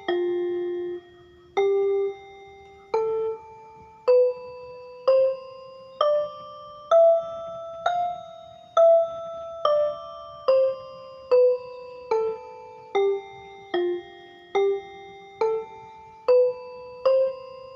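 Background music: a slow melody of single struck, bell-like notes, about one a second, each starting sharply and ringing away.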